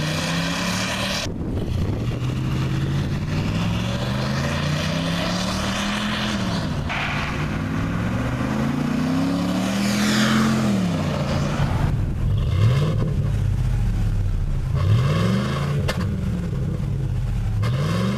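Ford F-350's 6.2-litre gas V8 through a Gibson single swept side exhaust, accelerating hard: the engine note climbs and drops back at each upshift. Near the end it rises and falls quickly several times.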